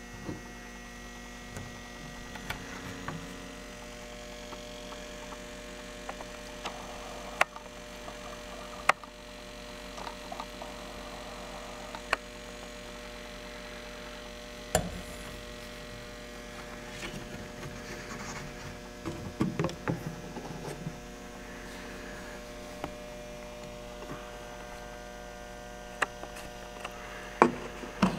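Steady electrical mains hum, broken by scattered sharp clicks and small knocks as the hinged cabin doors of a large radio-controlled model Beaver airplane are handled, opened and shut, with a flurry of handling noises about two-thirds of the way through.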